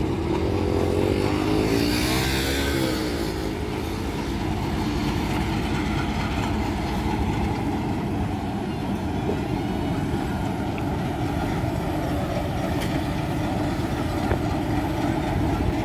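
Diesel locomotive engine running as the locomotive rolls slowly past. Its engine note wavers up and down for the first three seconds, then settles into a steady drone.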